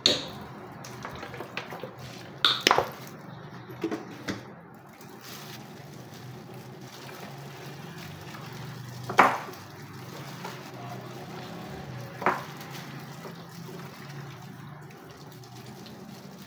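A gloved hand mixing raw chicken pieces in a wet vinegar and spice marinade in a ceramic bowl: wet squishing, with a handful of sharp knocks and clinks against the bowl, the loudest about nine seconds in. A low steady hum runs underneath.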